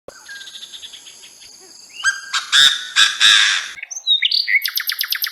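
Birds calling: a faint, rapid high trill, then a few loud, harsh chirps about two seconds in, then a fast run of repeated high notes near the end.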